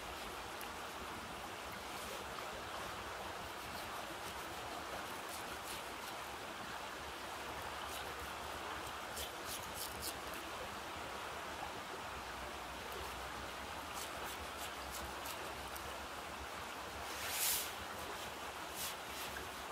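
Steady rush of river water, with scattered faint clicks and scrapes from a knife cutting an eel on a log, and one short louder scuff near the end.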